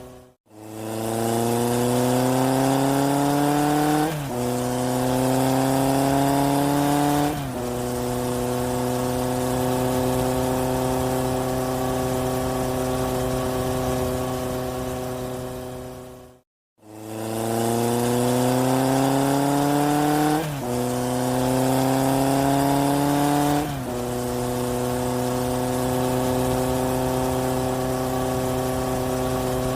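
Engine sound effect of a vehicle accelerating: the pitch rises, drops at a gear change, rises again, drops at a second shift, then holds steady at cruising speed. The same clip cuts out suddenly and starts over about halfway through, played as a loop in place of the real soundtrack.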